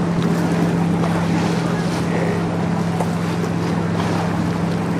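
Steady low drone of a boat engine, one constant hum under the rush of wind on the microphone.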